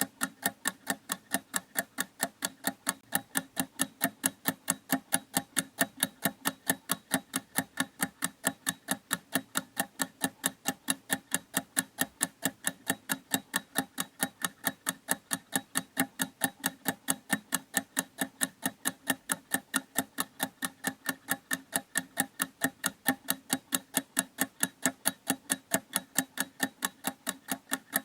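Clock ticking steadily, a few even, sharp ticks a second.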